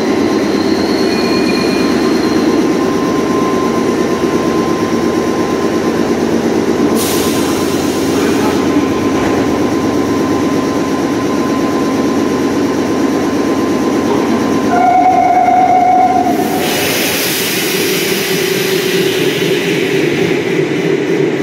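Nagoya Municipal Subway Tsurumai Line train at the station platform, a steady loud rumble throughout. A sharp hiss comes about seven seconds in and a brief tone around fifteen seconds, followed by louder, hissier running noise.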